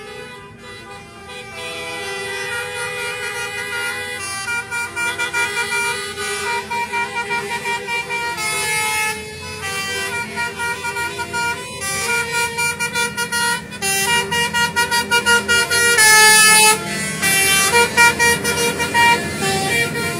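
Multi-tone musical 'telolet Basuri' horn on a tractor playing a quick melody of short stepped notes, with one long loud held note about three-quarters of the way through. Vehicle engine noise runs underneath.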